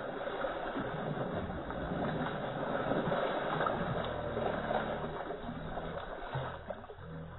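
Water splashing as hands scoop and throw stream water over a horse standing in a shallow muddy stream. A low steady hum comes in about halfway through.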